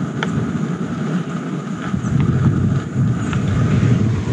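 Strong wind buffeting the microphone in a steady low rumble, with a few faint sharp crackles from eggs frying in a pan.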